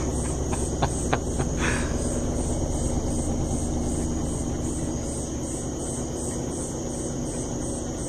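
Electrolux LT12F top-loading washer spinning its basket in one of the repeated spin ramps of the rinse drain: a steady motor hum with a rapidly pulsing high whine. It eases off slightly in the second half as the basket slows.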